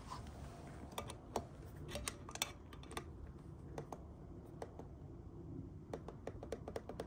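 Spoke torque wrench working on a bicycle wheel's spoke nipples: scattered sharp clicks and ticks of metal on metal as spokes are tightened one after another. Near the end comes a rapid run of even ticks.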